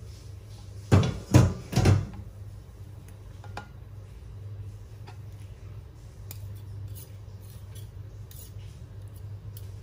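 Kitchenware being handled while baking: three quick knocks about a second in, then light clinks and taps over a low steady hum.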